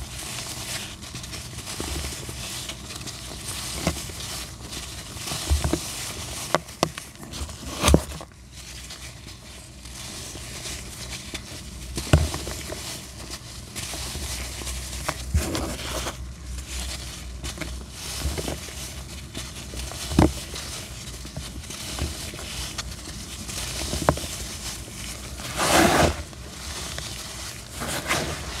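Dry pressed black sand crushed and crumbled by hand, a continuous gritty rustle of powder sifting through the fingers with sharp crunches each time a chunk snaps. The loudest crunch comes near the end.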